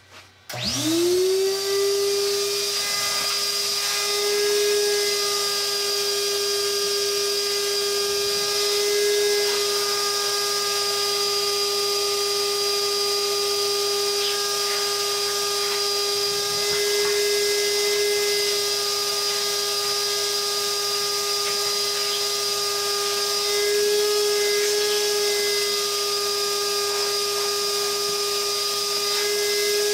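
Vacuum cleaner switched on about half a second in, its motor whine rising quickly to full speed, then running steadily as the hose sucks old lint out of a dryer. The pitch and level shift a little now and then as the nozzle is moved about.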